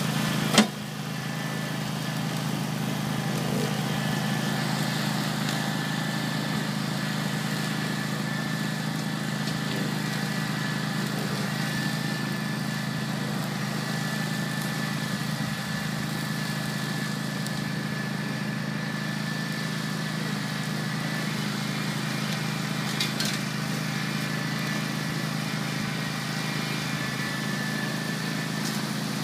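Grillo Climber 7.16 ride-on slope mower running steadily under load while it mows a steep grass bank: a constant engine hum with a thin, steady whine above it. A sharp click less than a second in, and a smaller one near the end.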